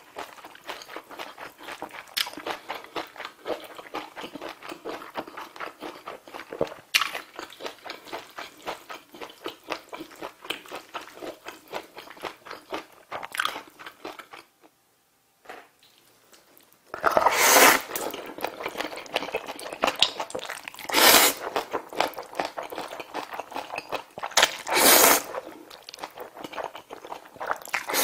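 Close-miked eating of instant black bean noodles topped with sliced braised pork trotters: dense, fast wet chewing and mouth smacking. After a brief quiet break about halfway through, there are four loud slurps of noodles a few seconds apart, with chewing between them.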